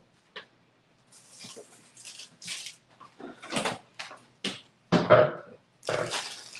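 A string of short, irregular rustles and knocks from things being handled in a kitchen.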